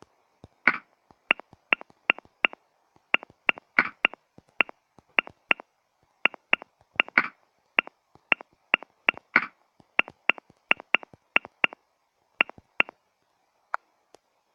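Smartphone keyboard clicks as a message is typed: short sharp taps at an uneven pace of two or three a second, thinning out and stopping shortly before the end.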